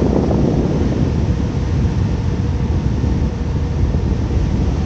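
Wind buffeting the microphone on the open deck of the Tokyo Bay ferry Kanaya-maru under way: a steady low rumble with no distinct events.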